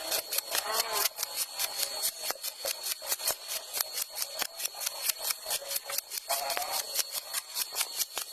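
Electric arc welding on thin galvanized pipe: a rapid crackle of sharp ticks, about six a second, over a steady high whine.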